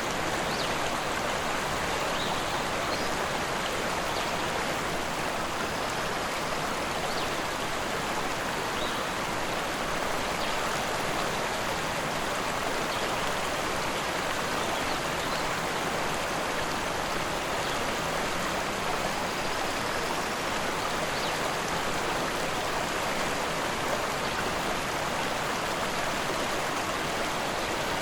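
A rushing river: a steady, unbroken rush of flowing water.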